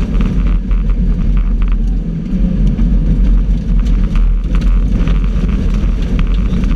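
Subaru rally car at speed on a gravel stage, heard from inside the cabin: the engine runs hard under a heavy low rumble, with many short clicks of gravel striking the car's underside. The sound eases briefly about two seconds in.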